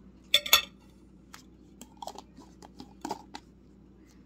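Table knife clinking sharply against a ceramic plate twice about half a second in, followed by lighter clicks, taps and short scrapes as the knife and a plastic mayonnaise jar are handled.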